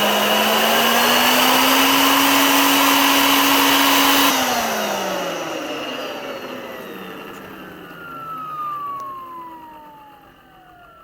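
Vacuum cleaner motor running, its hum rising slightly in pitch about a second and a half in, then switched off about four seconds in: the rush of air stops at once and the motor winds down with a falling whine that fades over several seconds.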